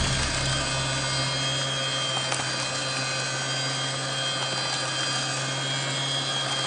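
Electric hand mixer running steadily, its beaters whipping an egg batter in a stainless steel bowl.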